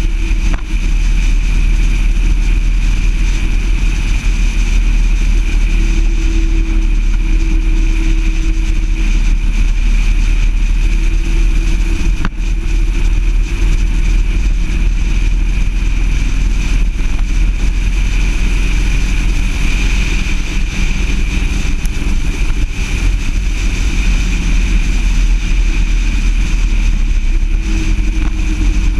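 Car driving steadily along a road: continuous engine and tyre noise with a heavy low rumble of wind on the outside-mounted camera.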